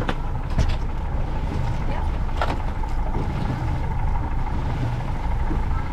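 Boat's outboard motor running steadily at trolling speed: a low rumble with a faint steady whine over it. A few short clicks or knocks sound over it, the clearest about half a second and two and a half seconds in.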